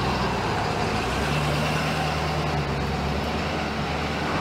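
Ambulance engine running with a steady low hum as the vehicle moves slowly past and away.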